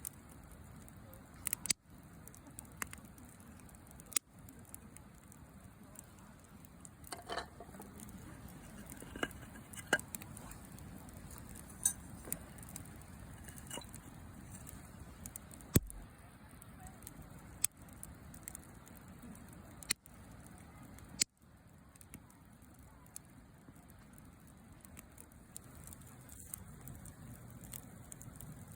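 Wood campfire crackling: irregular sharp pops and snaps of burning wood, a dozen or so, over a steady low background.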